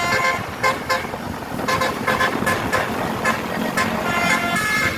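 Tour bus 'telolet' musical horn sounding chords of several horn tones that step from note to note: a blast at the start, short bits around two seconds in, and a longer run near the end, over steady outdoor road noise.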